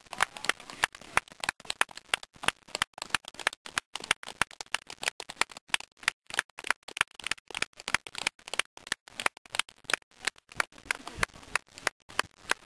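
Scattered applause from a small audience: many separate hand claps, irregular and several a second.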